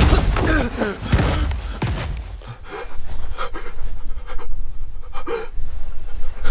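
A man panting and gasping hard, with scattered thuds and knocks over a steady low rumble.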